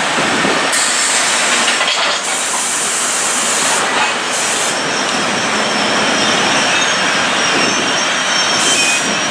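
NJ Transit train of Multilevel coaches, with its ALP-46A electric locomotive at the tail, passing close: a steady wheel-on-rail rumble with several bouts of high hiss. From about halfway through a faint thin squeal comes from the wheels.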